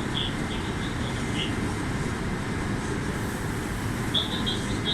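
Meitetsu 2000 series electric multiple unit running along the line, heard from on board as a steady low rumble. Short high chirps repeat over it in the first second and a half and again from about four seconds in.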